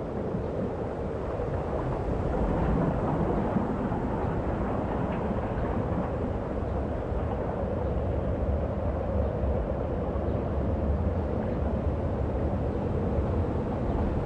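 Steady low rumble of city traffic and an elevated train, growing a little louder about two seconds in.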